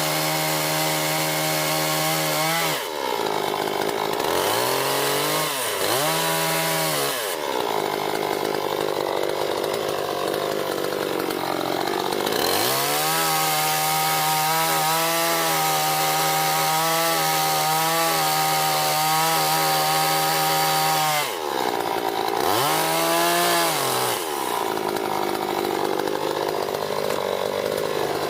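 Chainsaw running at high revs, its engine note sagging when the chain is loaded in the wood and climbing back when it runs free. The pitch dips and recovers about three seconds in, stays lower and rougher from about seven to twelve seconds in, runs high and steady after that, then dips again about twenty-one seconds in and stays under load near the end.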